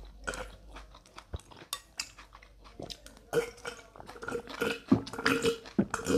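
Close-miked eating sounds: chewing, with a metal spoon clicking and scraping against a plate in many short sharp clicks that come thicker in the second half.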